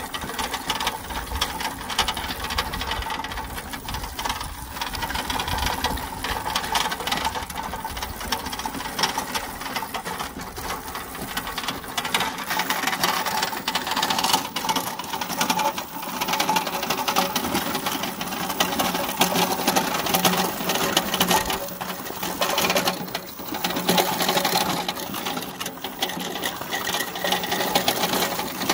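Car alternator converted to an electric motor, whirring steadily as it drives a pedal go-kart, with the tyres crunching and rattling over gravel.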